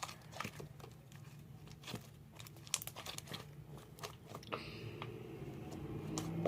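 Fluffy glitter slime being squished and stretched in the hands, giving a scatter of small clicks and crackles. A low rumble builds over the last couple of seconds.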